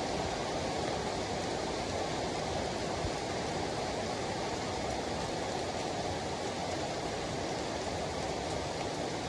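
Heavy rain falling steadily on a wet street, grass and leaves, a dense even hiss without a break.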